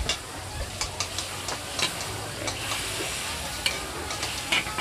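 Sliced meat sizzling steadily in a large metal wok while two metal spatulas scrape and clack against the pan in quick, irregular strokes during stir-frying.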